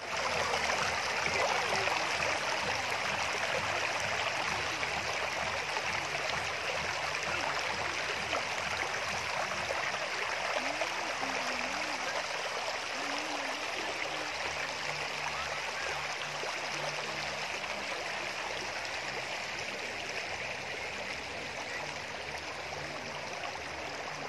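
Clear, shallow river water running over pebbles and stones: a steady rushing and gurgling that grows a little softer toward the end.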